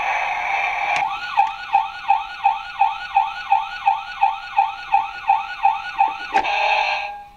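A battery-powered toy fire engine's electronic sound effects, switched with clicks of its side buttons: a steady electronic sound, then, after a click about a second in, a fast siren wail rising and falling about three times a second. Another click near the end cuts it off and a short different sound begins.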